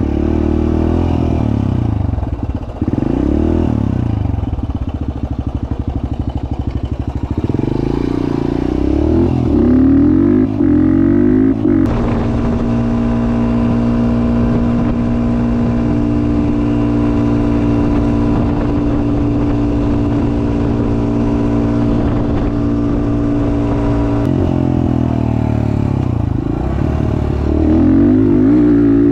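Off-road vehicle's engine under way, its pitch rising and falling as the throttle changes, then holding steady for about twelve seconds in the middle before rising and falling again.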